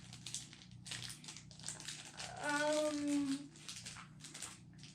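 Plastic toy packaging crinkling and rustling in hands as it is opened, in quick irregular crackles.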